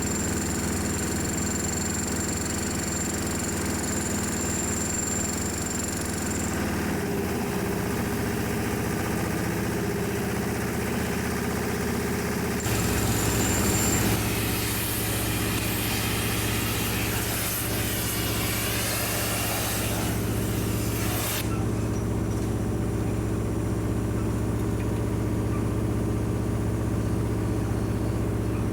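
An engine running steadily, its tone dropping lower about halfway through, with a loud hiss for several seconds in the middle.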